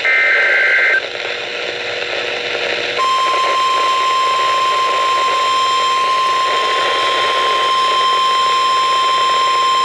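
NOAA Weather Radio broadcasting an Emergency Alert System tornado warning: a one-second burst of the SAME header data, a buzzy two-tone warble, then about two seconds of radio static. About three seconds in, the steady single-pitch weather-radio warning alarm tone starts and holds.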